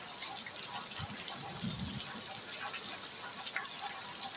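Steady rain falling, an even hiss with scattered drip-like patters. A brief low rumble comes about a second in.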